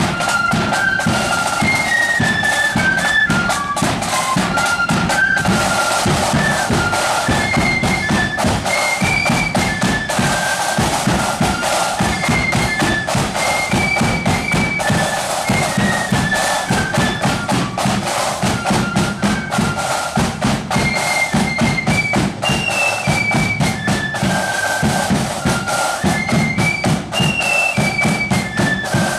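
Marching flute band playing a tune: a high flute melody over steady, driving snare and bass drumming.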